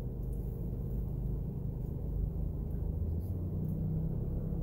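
Steady low rumble of a car engine idling, heard from inside the cabin, with faint chewing of a mouthful of burger.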